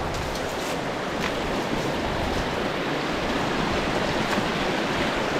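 River water rushing steadily over a log jam in a small cascade, the river running high with spring snowmelt. A few light crackles of dry brush being pushed aside come in the first second or so.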